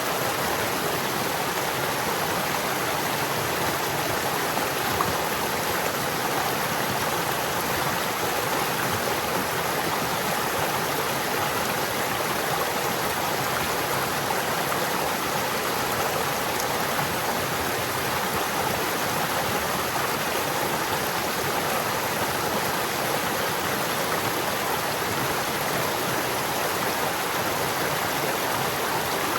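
Steady running water of a stream: a constant, even rushing and babbling with no breaks.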